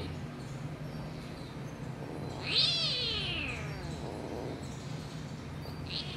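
Kitten meowing while play-fighting with another kitten: one loud, high meow about two and a half seconds in that falls in pitch over about a second, and the start of another meow right at the end, over a low steady hum.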